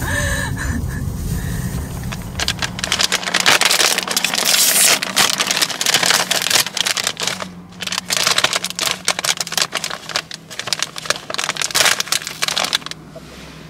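Rapid, dense crackling and rustling, as of something being handled close to the microphone, with a brief lull about halfway through. It stops about a second before the end.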